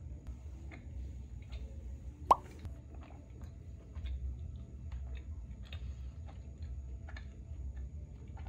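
A single short cartoon-style "bloop" pop sound effect, quickly rising in pitch, about two seconds in. Under it are a faint low rumble and scattered small clicks.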